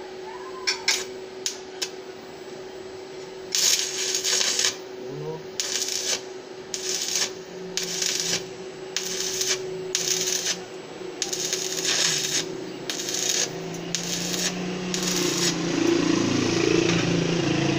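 Stick-welding arc from a 6013 electrode on 14-gauge steel square tubing, run at about 80 amps to lay small tack welds. It comes as about ten short bursts of hiss, each under a second, after a few sharp clicks near the start. A steady hum runs underneath.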